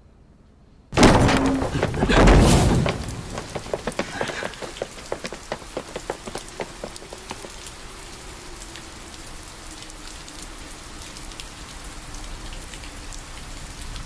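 A sudden thunderclap about a second in, rumbling on loudly for about two seconds. Then steady rain falls, with many distinct drops ticking.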